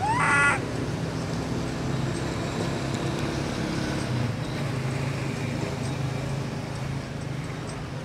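Baby monkey gives one short, shrill cry at the very start, rising in pitch, over a steady low hum.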